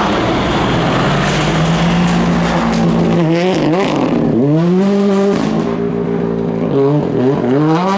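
Ford Fiesta R5 rally car's turbocharged four-cylinder engine held at high revs on approach. About three seconds in the revs drop sharply for braking into the corner, then rise in steps through the gears as it powers out, with a few more quick drops and rises near the end.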